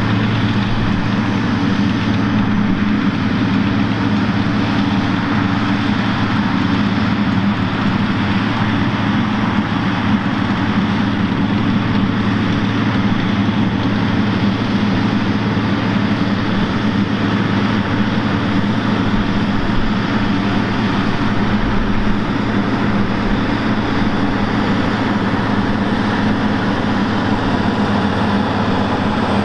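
CAT Challenger tractor's diesel engine running steadily as it pulls a scraper pan, a constant deep engine hum.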